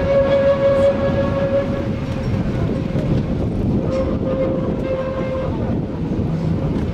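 Electric cog-railway train running on its rack track: a steady rumble of wheels and gearing with a high, even whine that fades about two seconds in and comes back briefly around four seconds.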